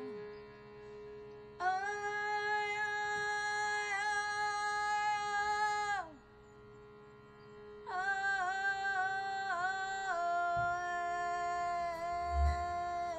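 A woman singing long, held wordless notes over the steady reed drone of a shruti box: two long phrases, the second wavering in pitch before settling into a steady tone. A short low thump near the end.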